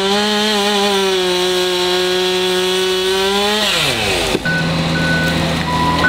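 Two-stroke chainsaw running at full throttle as it cuts tree limbs, a steady high engine pitch; about three and a half seconds in the throttle is let off and the engine winds down, and a steady lower engine note follows.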